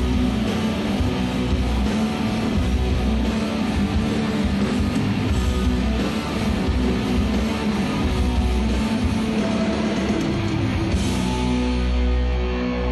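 Live rock band playing loud, with distorted electric guitars and drums, heard from within the audience. About two seconds before the end the playing gives way to a held, droning chord.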